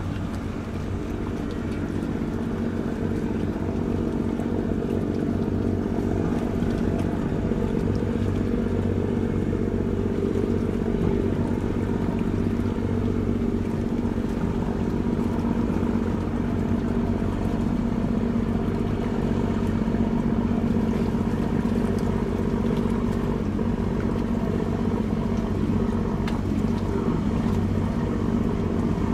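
Engines of the fast passenger ferry MV Oceanna VII running with a steady low drone and hum as the boat manoeuvres slowly in to its berth. The drone grows a little louder over the first few seconds.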